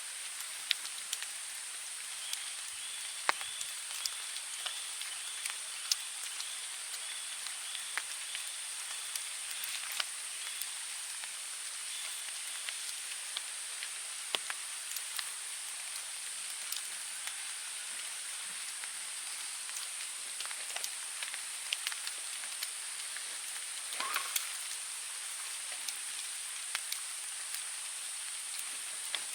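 Forest ambience after rain: scattered water drops tapping irregularly over a steady high-pitched hiss. A few seconds in, a brief rapid chirping joins for several seconds.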